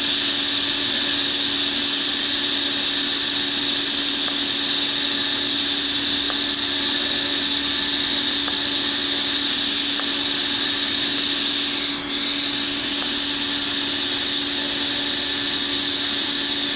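TIG welding arc buzzing and hissing steadily, unbroken, as a crack in an exhaust header flange is welded with steel filler rod.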